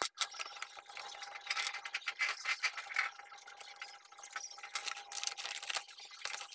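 Irregular light clicking and rattling of metal parts as hands grip and work the shaft coupling on top of a spin-dryer motor.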